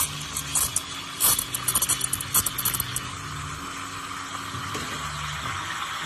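Espresso machine steam wand hissing in a stainless pitcher of milk, with sharp, irregular chirps of air being drawn in for the first three seconds or so as the milk is stretched. It then settles into a smoother, steady hiss as the milk swirls and is textured.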